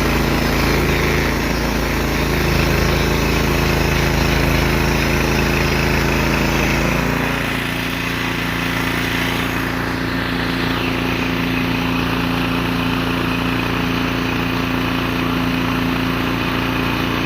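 Sawmill's small gasoline engine running steadily. About seven seconds in its note changes and it gets slightly quieter, then it runs on evenly.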